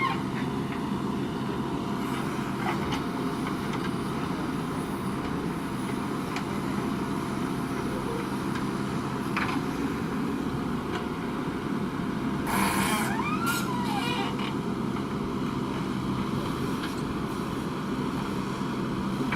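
Diesel engine of a JCB 3DX backhoe loader running steadily while working, with a brief higher-pitched sound about two-thirds of the way through.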